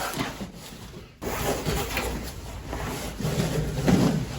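Packaging rustling and scraping as a present is unwrapped and handled, with a short lull about a second in before the rustling picks up again.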